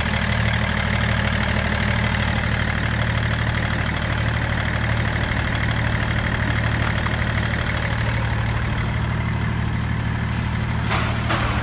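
BMW X5 E53 three-litre straight-six turbodiesel engine idling steadily.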